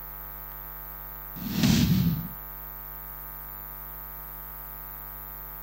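Steady electrical hum with a buzzy stack of overtones. About one and a half seconds in, a short whoosh lasting about a second, the sound effect of an on-screen news caption changing.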